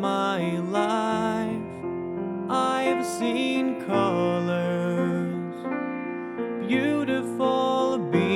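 Background music with piano.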